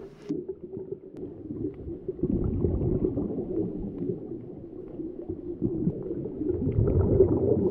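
Muffled underwater rumbling and bubbling, the sound of a scuba dive picked up by an underwater camera, rising and falling in irregular swells.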